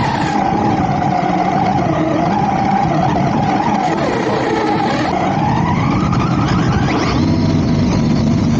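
Arrma Typhon RC buggy's electric motor and drivetrain whining under throttle, the pitch wavering and then rising from about five seconds in as it speeds up, over the rush of its tyres on sand.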